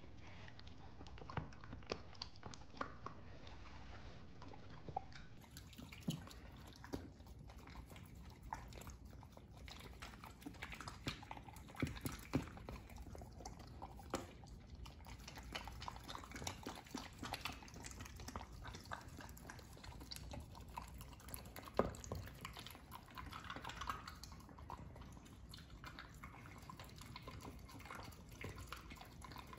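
Corgi eating chopped vegetables and meat from a plastic slow-feeder bowl: faint wet chewing and licking with many small, irregular clicks.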